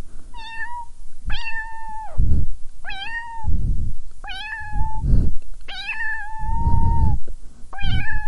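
Domestic cat meowing repeatedly, about six drawn-out meows, each holding a steady pitch and dropping away at the end. A loud, low, rough rumble follows each meow.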